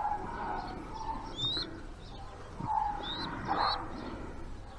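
Faint pigeon calls: soft low coos and a few short high chirps that rise in pitch, about a second and a half and three seconds in.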